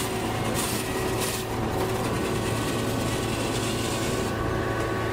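Sawmill log-processing machinery running steadily: a constant mechanical hum under a rough, hissing noise, with brief brighter hissing in the first second or so.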